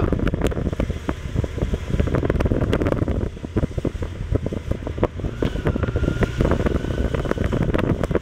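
Wind buffeting a motorcycle-mounted microphone in uneven gusts while the motorcycle rides, its engine running underneath.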